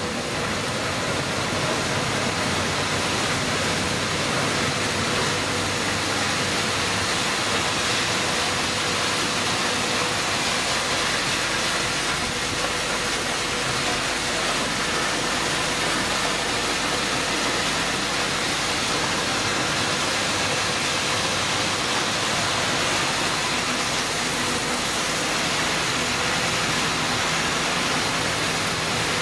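Waste radiator recycling line running, its crusher and air separator making a loud, steady, even rush of noise with a faint steady hum under it.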